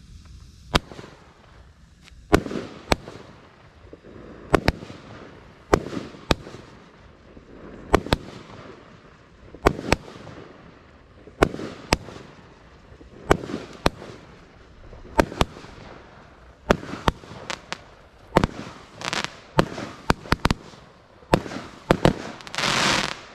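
A ground-launched firework firing a series of shots into the air. The sharp cracks come mostly in pairs, each with a short hiss, about every one and a half seconds. Near the end there is a longer, louder hiss.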